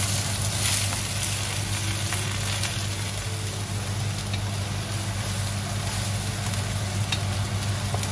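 Prawn heads and shells sizzling in a hot oiled wok, louder in the first second as they are tipped in, then stir-fried with a wooden spatula to fry the shells dry for prawn stock. A steady low hum runs underneath.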